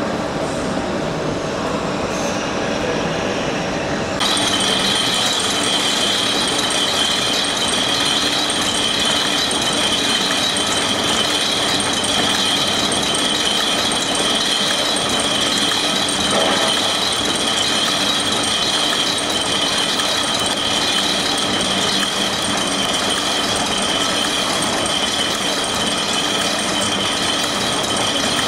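A Victoriam pocket folding and gluing machine running steadily while folding and gluing cardboard envelopes. It makes a dense, continuous mechanical noise that gets louder about four seconds in, when a steady high whine joins it.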